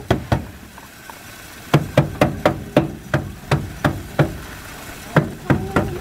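Sharp knocks, about three a second, coming in runs of several strikes with short pauses between.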